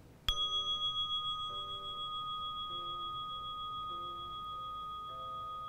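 A meditation timer's bell chime, struck once and ringing on with a slow fade, over soft ambient music notes.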